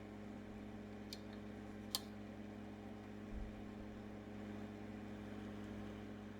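Steady low electrical mains hum, with two faint clicks about one and two seconds in and a soft low bump a little past the middle.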